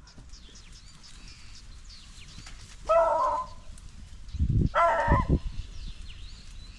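Hunting beagles giving two short bays, about three and five seconds in, with faint bird chirps in between.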